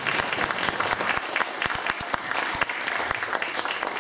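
Audience applauding, many hands clapping at once, at the end of a song.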